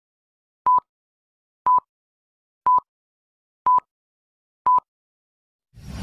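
Film-leader countdown beeps: five short, identical high beeps, one each second, each followed by a faint click. Just before the end a loud rush of noise begins.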